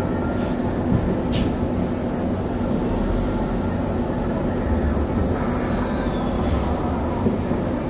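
Fireworks display: a steady, dense rumble of firework shells being launched and bursting, with a couple of sharper pops and a faint falling whistle about five seconds in.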